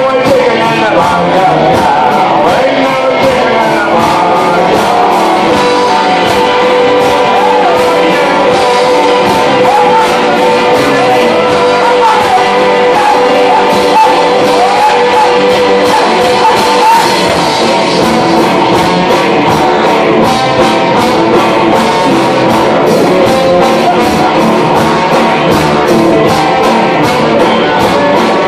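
Live band playing loud, with singing over drums and acoustic guitar.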